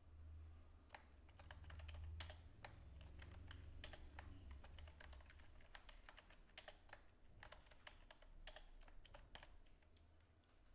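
Faint typing on a computer keyboard: irregular keystrokes as a line of text is entered, over a low hum during the first half.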